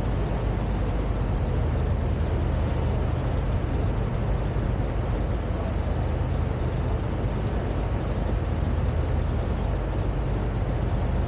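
Fjord tour boat's engine running steadily: a constant low drone under an even rush of noise.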